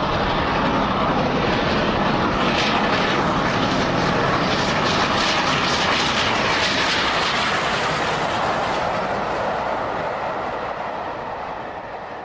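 Model LNER A4 locomotive and its train running at speed along a model railway: a steady rolling whir and rumble, with a run of rapid clicks over rail joints and points in the middle, fading away toward the end.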